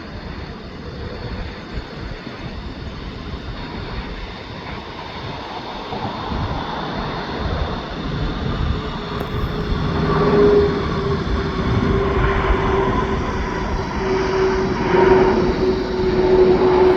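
Jet airliner's engines, a rumble that grows steadily louder as the aircraft nears, with a steady engine whine coming in about halfway through.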